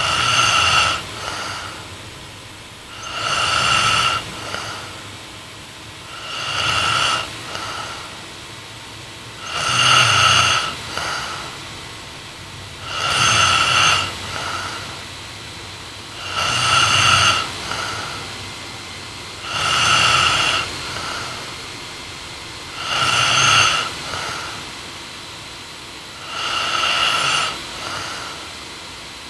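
A young woman asleep and snoring steadily, about one snore every three seconds, nine in all; each snore is followed by a brief softer tail.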